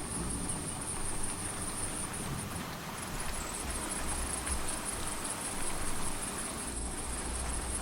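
Steady rain with crickets chirring throughout in a continuous high, finely pulsing trill.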